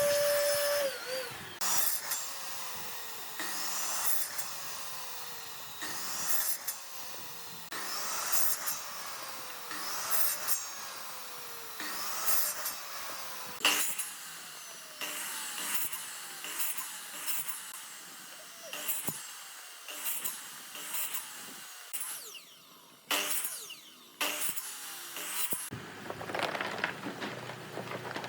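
A power tool motor runs steadily, then winds down about a second in. It is then switched on in short bursts about every two seconds, each burst starting sharply and falling in pitch as the motor spins down.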